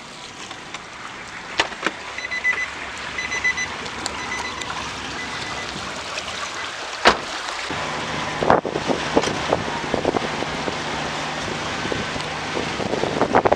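Wind and the steady drone of a river car ferry, heard on its open deck, with a few door and handling clicks and a short run of high beeps early on. A low engine hum comes in about halfway through, and wind buffets the microphone near the end.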